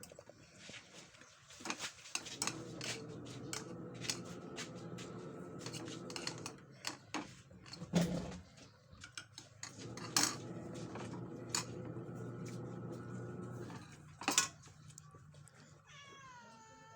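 Spoon and dishes clicking and knocking while someone eats, over a steady hum. Near the end a cat meows once, a falling call.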